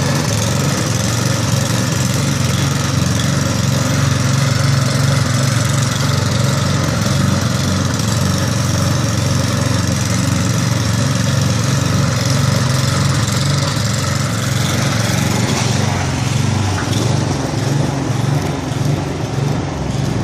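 Snow blower engine running steadily while clearing a sidewalk, a continuous loud motor drone with a strong low hum; its note shifts a little about fifteen seconds in.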